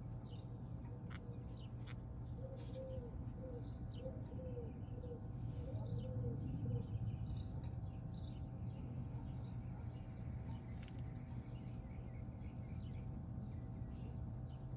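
Wild birds chirping with short high calls throughout, and a run of low cooing notes from a dove a few seconds in, over a steady low hum.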